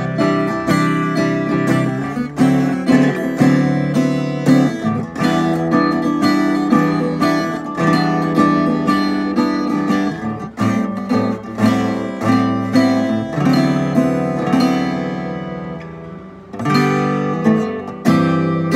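Giannini Craviola-style steel-string acoustic guitar (CRA36S) strummed with the fingers in a rhythmic pattern of chords. About fifteen seconds in the strumming stops and a chord rings and fades, then the strumming starts again near the end.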